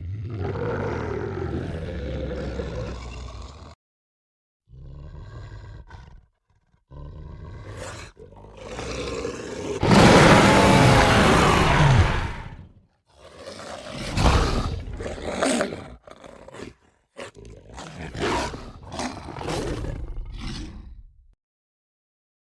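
Film werewolf creature sound effects: a string of about six separate roars and growls, each cut off into silence. The loudest is a long roar about halfway through that falls in pitch.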